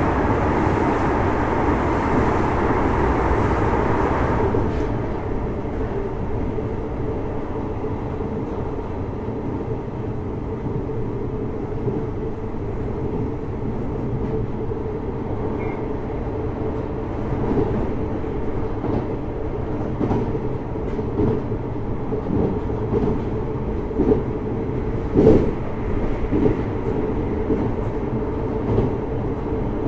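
JR Hokkaido 733 series electric multiple unit running at speed between stations, heard from inside the passenger car. A brighter, louder running noise falls away about four and a half seconds in. Later the wheels give occasional clicks over rail joints.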